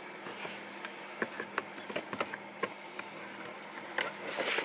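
Small clicks and taps of a plastic VHS cassette and its case being handled and turned over, with a brief rubbing swish near the end over a faint steady hum.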